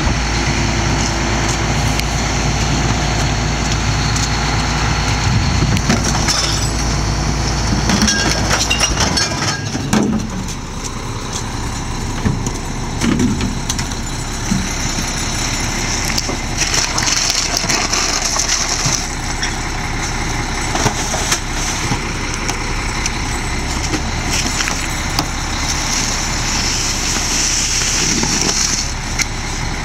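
Split-body rear-loading garbage truck's diesel engine running, with a strong low drone for about the first nine seconds, then settling to a lower idle. Scattered knocks and clatter come from trash being handled at the hopper, with bursts of hiss near the middle and near the end.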